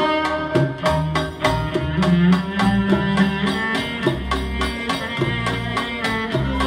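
Live Middle Eastern orchestral music: a string section with a solo cello, over a steady drum beat.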